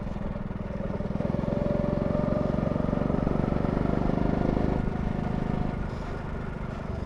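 Go-kart engine running under throttle, its pitch climbing slowly for a few seconds, then easing off about five seconds in.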